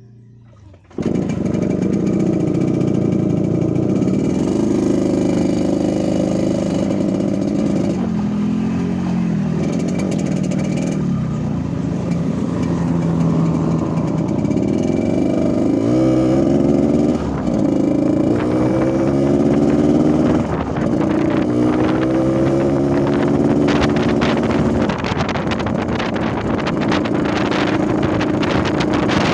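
Yamaha RX-King's single-cylinder two-stroke engine running, tuned for the deep 'ngorok' (snoring) exhaust note. It comes in suddenly about a second in, then is revved up and down several times.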